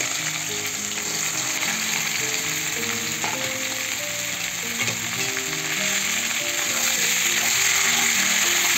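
Freshly added cubes of raw green pumpkin sizzling in hot tempered oil in a kadhai as they are stirred, the sizzle growing louder near the end.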